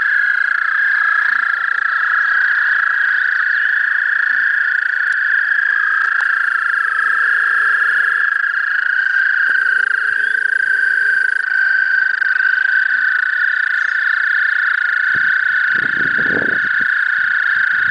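Breeding chorus of American toads: many long, high trills overlap into one steady, unbroken drone. A brief low rumble comes near the end.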